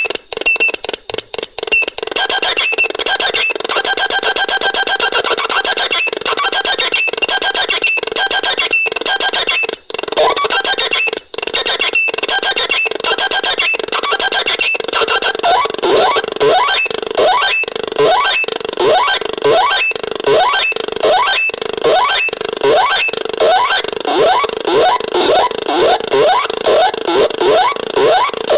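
Vapesonic RX 21 electronic sound device making abstract radio-like noise: crackling static with steady high tones and rapid clicks. About halfway through, short rising chirps join in, repeating about twice a second.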